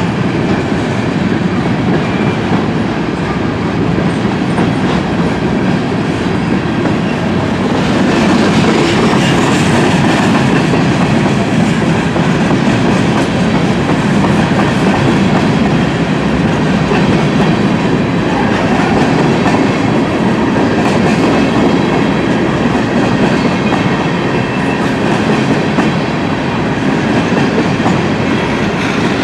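Freight train's loaded cars, covered hoppers and gondolas, rolling steadily past, steel wheels running over the rails in a loud, continuous rumble that grows a little louder about eight seconds in.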